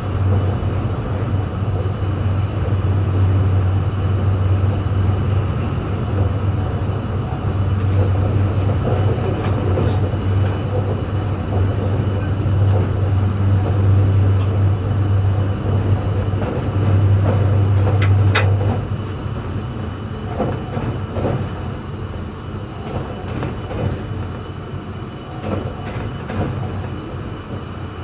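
Diesel locomotive engine drones steadily as the train rolls slowly through the station. The drone drops away about two-thirds of the way through, leaving scattered clicks of the wheels over rail joints.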